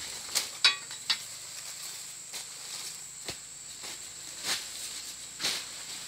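Scattered sharp cracks and rustles of plant material, a few loud near the start and softer ones later, over a steady high insect drone.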